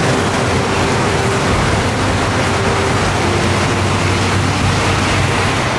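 Tohoku Shinkansen bullet train passing straight through the station at high speed: a loud, steady rush of air and rail noise.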